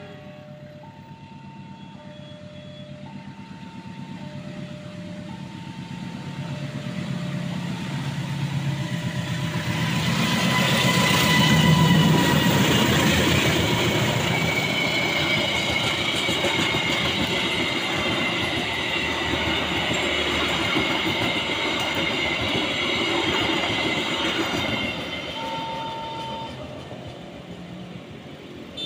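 A level crossing's warning signal sounds two alternating tones, while a locomotive-hauled passenger train approaches. The train is loudest about twelve seconds in, as the carriages roll past with a steady rumble of wheels on rails and a thin high squeal. The sound fades near the end.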